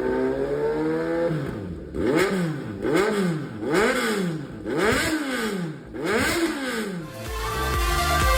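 Kawasaki Z900 inline-four, fitted with an SC Project CR-T titanium muffler, held at raised revs and then blipped sharply about five times, roughly once a second, each rev rising and dropping quickly. Electronic dance music comes in near the end.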